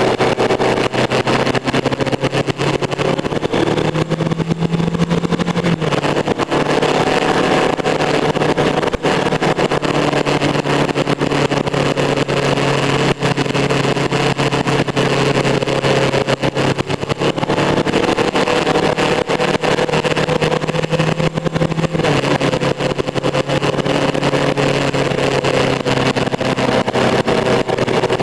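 Motorcycle engine running at road speed through curves, its note stepping up and down a few times as the throttle changes, over a steady rush of wind and road noise.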